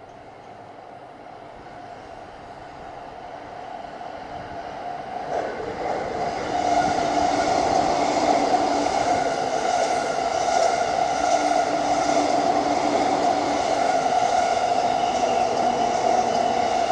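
A Keikyu electric train approaching and passing over a level crossing. Its running noise builds over the first five or six seconds and then holds loud, with a steady high-pitched tone running through it.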